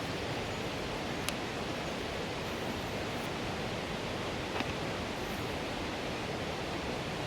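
Steady rushing of running water from the falls and river, with two faint clicks.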